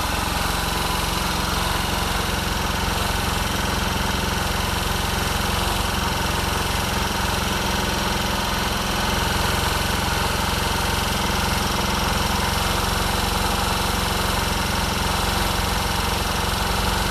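Small quad bike (ATV) engine idling steadily, a little louder from about nine seconds in.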